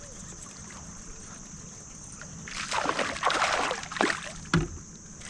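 Water splashing and sloshing around a kayak, starting about halfway in, in a run of irregular splashes.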